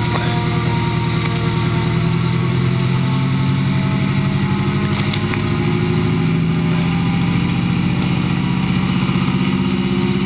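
A fire engine's diesel engine running steadily.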